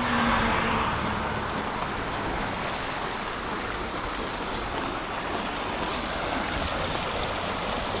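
Shallow creek water rushing and rippling over rocks, a steady even rush.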